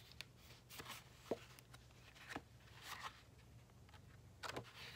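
Faint paper handling: a few short rustles and soft taps as sheets of patterned scrapbook paper and white cardstock are moved about and put down.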